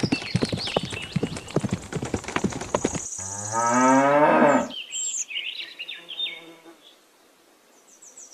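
A patter of rapid, irregular clicks, then a single loud cow moo about three seconds in that lasts about a second and a half, its pitch rising and then falling. Faint bird chirps follow before it goes quiet.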